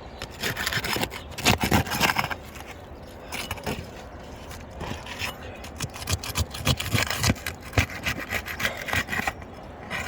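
A tool scraping and rubbing under roof shingles in bursts of rapid back-and-forth strokes, working the shingles loose and their nails free.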